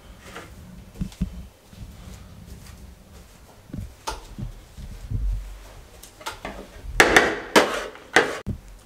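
Wire potato masher pressing and chopping boiled potatoes against a countertop, making irregular soft knocks and thumps, with a quicker run of louder knocks near the end.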